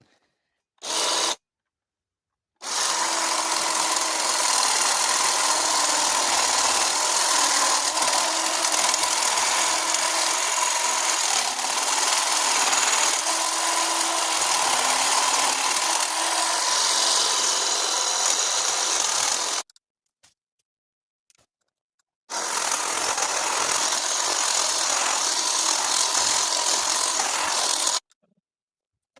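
A handheld power cutting tool cutting into an overgrown bush, running in spurts. There is a brief burst about a second in, a long steady run of about seventeen seconds, then a pause and another run of about six seconds. Each run starts and stops abruptly.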